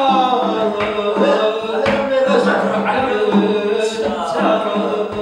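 A man singing into a microphone and amplified through a small loudspeaker, drawing out long, ornamented notes that slide up and down. A few sharp taps sound under the voice.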